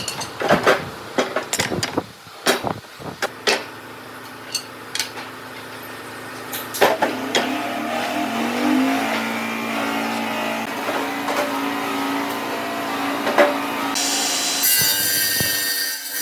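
Several sharp knocks of wood being handled, then a power tool runs and works against wood with a steady rasping noise, its motor pitch rising briefly about halfway through.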